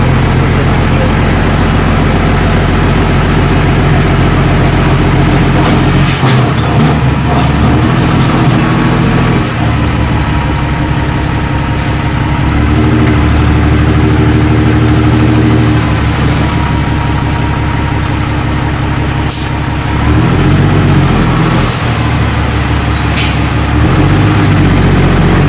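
Isuzu Forward dump truck's diesel engine running while its hydraulic hoist raises the loaded tipper body to dump soil. The engine note shifts several times along the way.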